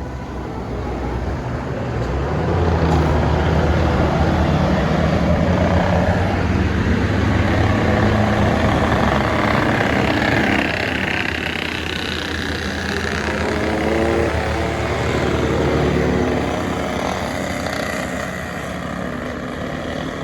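A bus engine running as a large bus drives past close by. It gets louder about two seconds in, swells again past the middle, then eases off toward the end.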